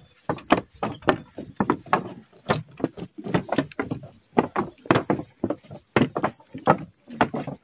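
Footsteps of several people walking briskly on a wooden plank boardwalk, shoes knocking on the boards about three to four times a second. A steady high-pitched drone runs behind them.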